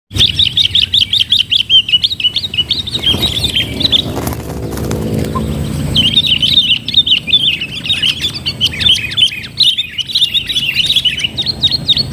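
Sooty-headed bulbuls giving a fast, high chattering call, several notes a second, which breaks off for about two seconds partway through and then resumes.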